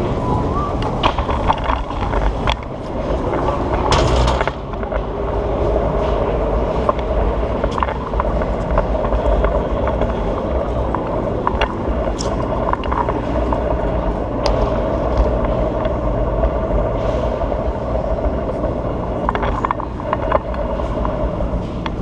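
Oxelo kick scooter's wheels rolling over a stone floor: a steady rumble with scattered sharp clicks and knocks.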